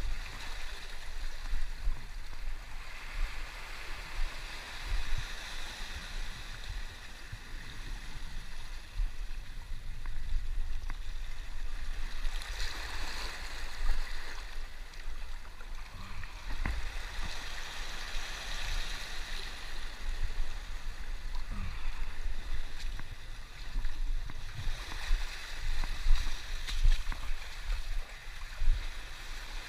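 Seawater washing over and draining off a rock shelf, surging every few seconds, with low bumps and a few short knocks.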